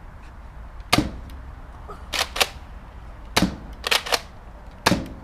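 A series of sharp cracks, seven in all, several coming in quick pairs about a fifth of a second apart.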